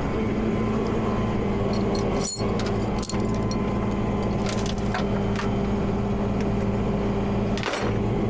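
A truck engine idles steadily while steel chain clinks and rattles a few times, as the chain is wrapped and hooked to tie down a towed pickup.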